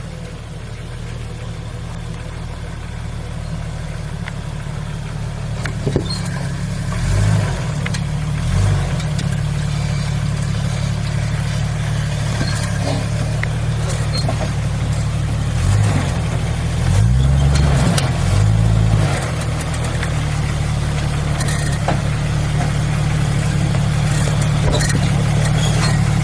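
1998 Jeep's engine running at low speed, revving up briefly about seven seconds in, again near nine, and in a longer stretch around sixteen to nineteen seconds in. The low drone is steady between the revs, with scattered clicks and knocks over it.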